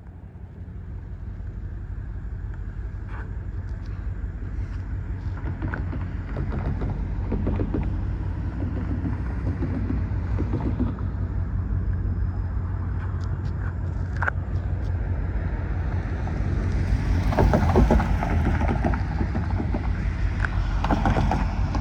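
Two EMD SD70MAC diesel-electric locomotives approaching with a freight train, their two-stroke V16 diesels running low and steady and growing gradually louder. A few sharp clicks are heard along the way.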